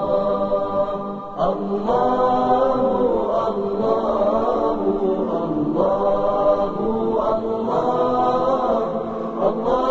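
Wordless sung vocal 'aahs' (aahat) in a chant-like style, held on long notes that slide between pitches, with no instruments. The line breaks briefly for a breath about a second and a half in and again near six seconds.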